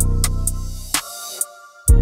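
Background music with a steady beat and deep bass; the beat and bass drop out about a second in and come back near the end.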